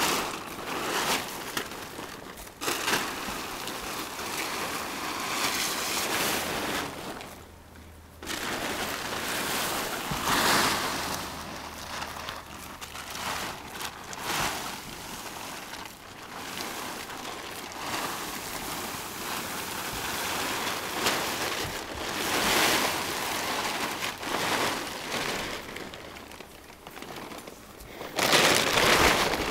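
Plastic tarp rustling and crinkling in uneven surges as it is handled and dragged over and off a horse, with a short lull about eight seconds in and a louder burst near the end.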